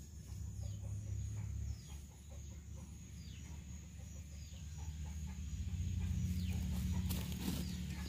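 Chickens clucking over a steady high-pitched insect drone and a low rumble, with a brief louder noise about seven seconds in.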